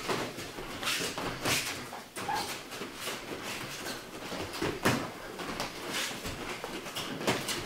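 Muay Thai sparring: irregular slaps and thuds of gloved punches and kicks landing on gloves and arms, with feet shuffling on a mat.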